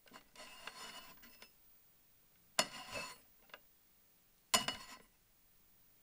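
Glass wine bottles in a wooden rack being handled: a sliding scrape over the first second and a half, then two sharp glass clinks, about two seconds apart.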